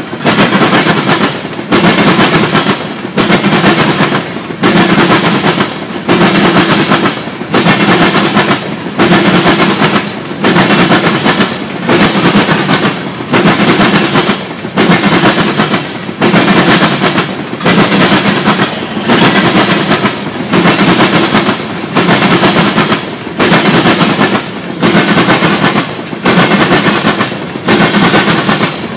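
Norfolk Southern covered hopper cars of a freight train rolling past close by, their wheels clattering loudly on the rails. The noise breaks briefly about every second and a half as each car goes by.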